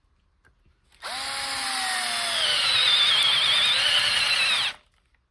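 Milwaukee M12 brushed screwdriver boring with a 3/4-inch spade bit for about four seconds, starting about a second in. Its motor whine slides down in pitch under the load of the cut, then it stops.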